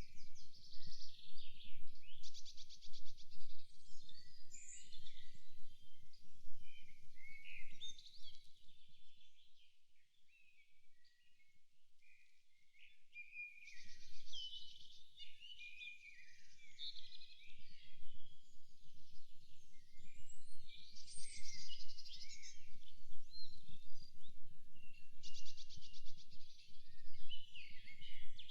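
A chorus of several songbirds singing and calling over one another: short chirps, quick gliding notes and repeated fast trills. Beneath them runs a low rumble that drops away for a few seconds in the middle.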